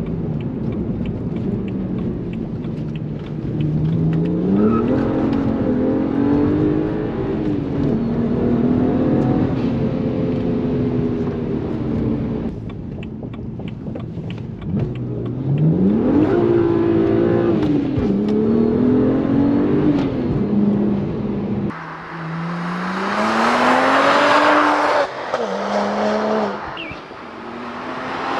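BMW 1M's twin-turbocharged 3.0-litre straight-six under hard acceleration, its pitch climbing and dropping with the gear changes. About three-quarters of the way through the sound changes to a louder, hissier run, again with the pitch climbing.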